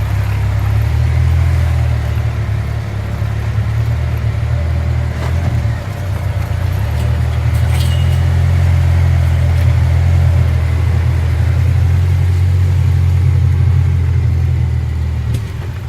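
Side-by-side off-road vehicle's engine running steadily with a loud, low, even drone, with a couple of faint knocks about a third and half of the way in.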